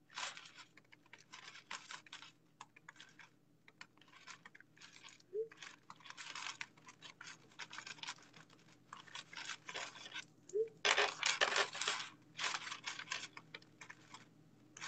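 Irregular scratching, rustling and tapping of a phone being handled close to its microphone, in bursts of varying length with the loudest stretch about two-thirds of the way through.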